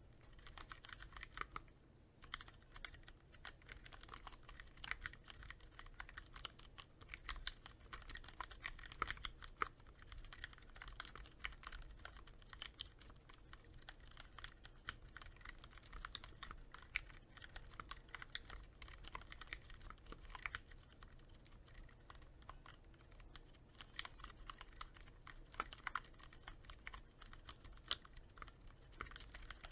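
Continuous typing on a Cherry MX Board 3.0S mechanical keyboard with Cherry MX Red linear switches, lightly lubricated with Krytox 105. Many quick, irregular keystroke clicks follow one another, with a few louder strokes here and there.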